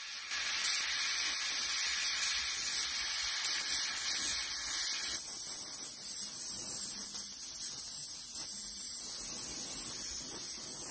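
Oxygen-fuel hand torch flame hissing steadily as it heats cast aluminum toward brazing temperature. About five seconds in, the hiss thins to a lighter, higher sound.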